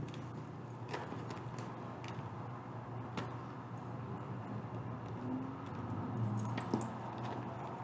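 A key jangling and scraping at a heavily taped cardboard box, with scattered clicks and taps, over a steady low hum.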